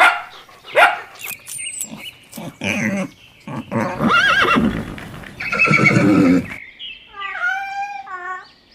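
Horse neighing, several separate calls in a row, the last a quavering whinny near the end.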